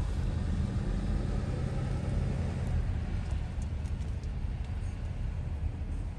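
Steady low rumble inside a car's cabin as the car idles and creeps forward in slow traffic, with a few faint ticks about halfway through.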